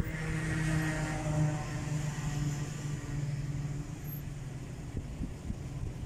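A car driving, heard from inside the cabin: steady road and engine noise with a droning hum that fades after about four seconds.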